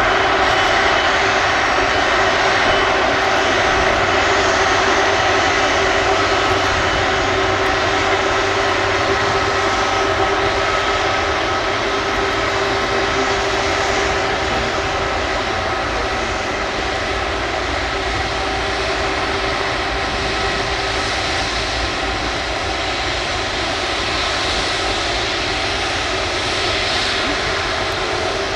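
Airbus Beluga XL's twin Rolls-Royce Trent 700 turbofan engines running at taxi power as the aircraft rolls past, a steady jet rumble and hiss with several whining tones, growing slightly quieter.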